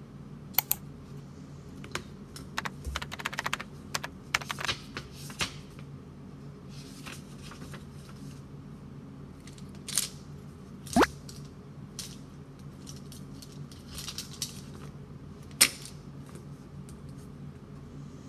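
Desk sounds of a paper planner being handled: rustling and turning pages and sharp clicks and taps as things are moved and set down, with a few louder taps, over a steady low hum.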